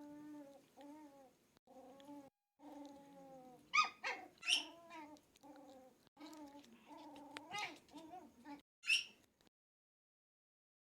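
Dogs making long, drawn-out grumbling moans that bend up and down in pitch, broken by a few sharp, high yelps about four seconds in and again near nine seconds. The sound then cuts off abruptly.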